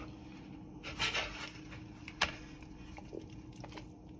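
Faint eating sounds: a big spoonful of burrito bowl taken into the mouth and chewed, with a soft rustle about a second in, one sharp click about two seconds in, and a few small ticks.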